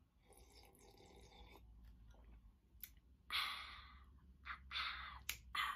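A woman sipping a drink from a mug, then letting out a loud, breathy "ahh" about three seconds in, followed by a few short breathy sounds.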